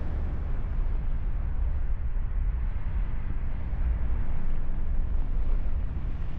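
Wind buffeting the microphone in paragliding flight: a steady, fluctuating low rumble of rushing air.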